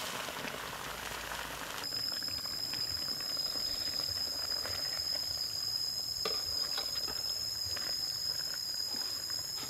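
Pork stew simmering and bubbling in a wok, with scattered clicks of a ladle and spatula against the wok, one clearer knock about six seconds in. From about two seconds in, a steady high-pitched insect trill runs alongside.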